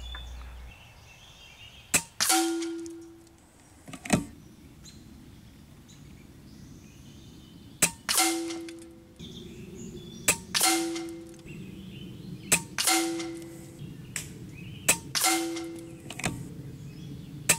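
Kalibrgun Cricket 2 Tactical .22 PCP air rifle firing about six shots a few seconds apart. Each sharp crack is followed about a third of a second later by a ringing clang as the pellet strikes a metal backstop 60 yards downrange. A couple of lone clicks fall between the shots.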